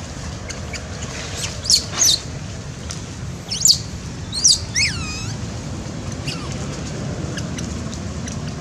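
Infant long-tailed macaque giving a series of short, high-pitched squeals, the loudest about two, four and five seconds in, one of them a cry that falls in pitch. A steady low rumble runs underneath.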